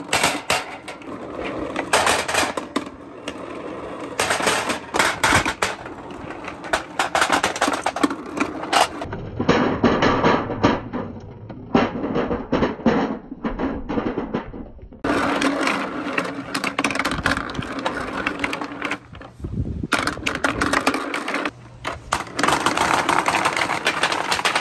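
Dozens of small toy balls dropping from a bucket dispenser and clattering into a toy dump truck's metal bed and across an aluminium table: a rapid, irregular rattle of knocks and bounces, sounding duller for several seconds in the middle.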